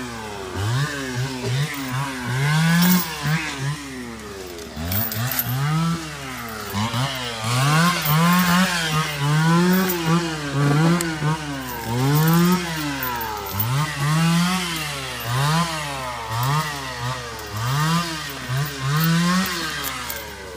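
A small engine revving up and falling back over and over, about once a second.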